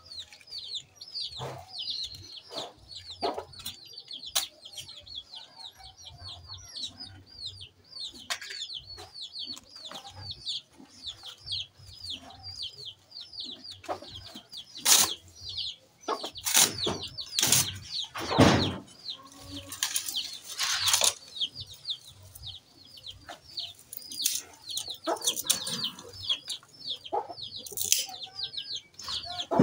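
Chicks peeping without a break in rapid, high, falling chirps, several a second, while sticks of firewood knock and clatter as they are laid between the stones of a three-stone hearth, with the loudest clatters about halfway through.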